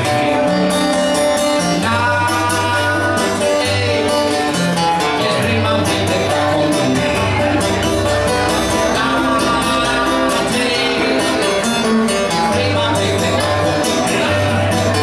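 Acoustic guitar played live, with notes ringing on over a repeating bass line and a man's singing voice joining in at times.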